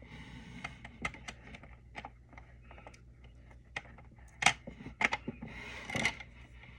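Small plastic toy pieces clicking and tapping as they are handled: a scattering of light irregular clicks, with a few louder knocks about four and a half, five and six seconds in.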